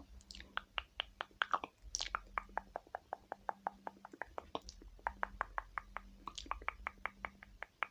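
Brow pencil strokes filling in an eyebrow: quick, short scratchy strokes, about five a second, over a faint steady hum.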